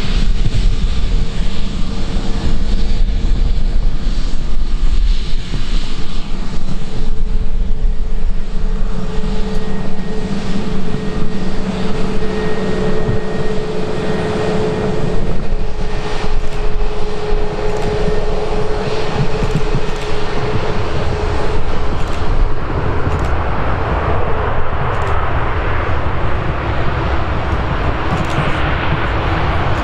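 An airliner's engines with a steady tone that fades out about two-thirds of the way through, heard under loud storm wind buffeting the microphone.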